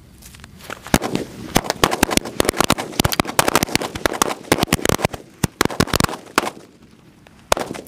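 A string of red firecrackers going off: a rapid, irregular run of sharp bangs starting about a second in and lasting around five seconds, then one last bang near the end.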